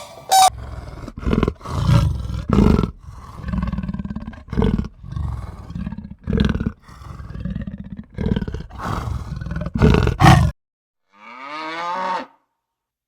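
Rapid run of loud, rough, noisy animal calls, about a dozen in ten seconds, that cuts off abruptly; then a single drawn-out cow moo near the end.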